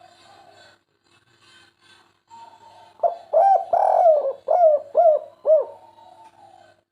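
Spotted dove (derkuku) cooing: after about three seconds of faint background, a loud run of about six rise-and-fall coo notes lasting close to three seconds.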